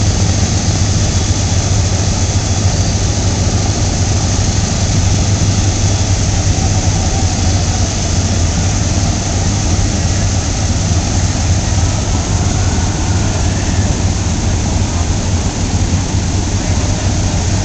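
Lockheed P-38 Lightnings' twin Allison V-12 engines running on the ground at warm-up, several aircraft together in a loud, steady drone with a deep hum underneath.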